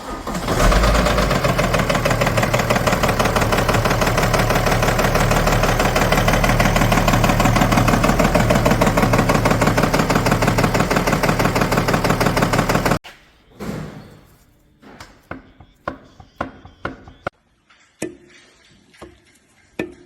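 BMW N57 three-litre straight-six diesel running with a loud, rapid knocking, the symptom of a broken crankshaft. It cuts off suddenly about 13 seconds in, leaving scattered separate clicks and knocks.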